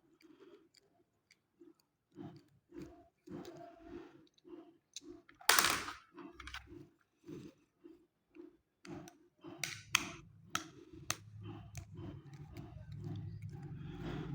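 A small 12 V water pump being opened up by hand: a string of small clicks and knocks from its housing and parts, with one louder scrape about five and a half seconds in and a few sharp clicks a little after the middle. A low rumble builds in the background over the last few seconds.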